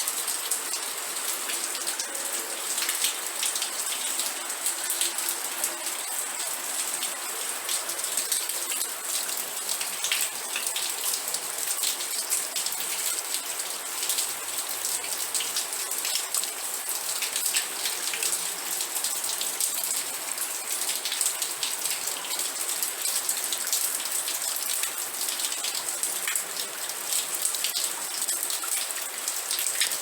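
Steady rain falling: a dense, even hiss of many drops, with sharp individual drop hits ticking throughout.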